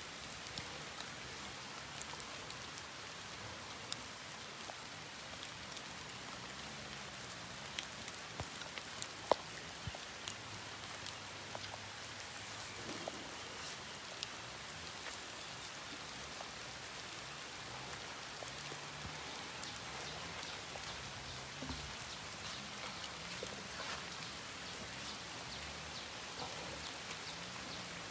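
Steady rain falling, with scattered drops ticking close by; the sharpest drop comes about nine seconds in.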